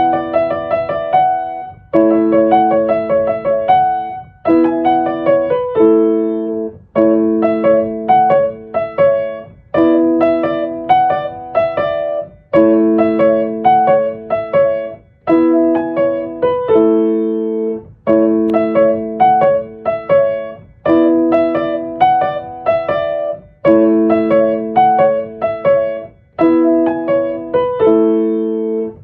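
Background piano music: gentle chords repeated in short phrases that fade out one after another.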